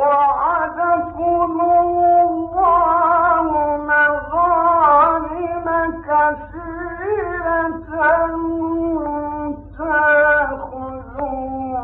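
A man reciting the Quran in the ornamented, melodic mujawwad style, holding and bending long notes in one continuous phrase. This is an old recording, with a steady low hum beneath the voice.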